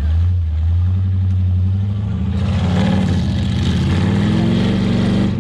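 Off-road wrecker buggy's engine running hard under load; from about two seconds in it revs higher and its tires spin, throwing sand, adding a broad rushing noise.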